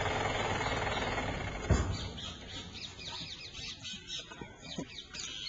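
Many small birds chirping in quick, short, falling chirps. Before them, a steady rumbling noise ends with a sharp knock a little under two seconds in.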